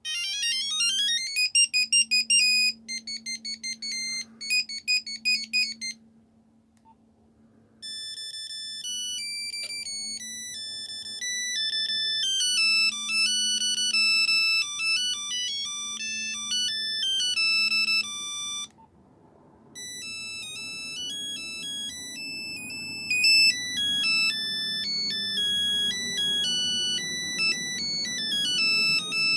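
Nokia 3210 mobile phone playing its monophonic ringtones one after another, each a run of single electronic beeping notes. The first begins with a fast rising sweep of beeps and then repeats a short beeping figure, stopping about six seconds in; after a short pause a second, faster melody plays for about ten seconds, and after another short pause a third melody begins.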